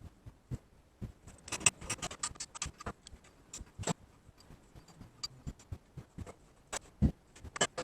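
Irregular clicks, clinks and light knocks of metal vise parts and tools being handled during disassembly, busiest about two seconds in and again near the end.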